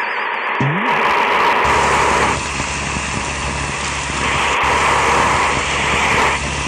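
Steady vehicle running noise: a loud hiss with a steady low hum that comes in about two seconds in, with a brief break in the middle.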